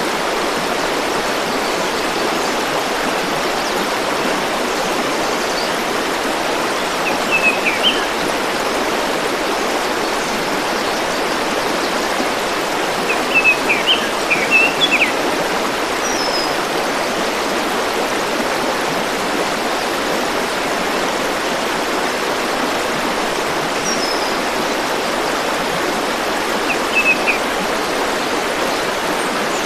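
Steady rush of a flowing river or stream, with a small bird chirping in short bursts about three times.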